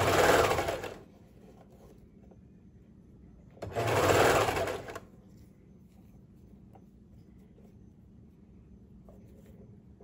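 Baby Lock Imagine serger (overlocker) running in two short bursts of about a second each, a few seconds apart. It is stitching and trimming the armhole seam in stops and starts while the fabric is repositioned around the curve.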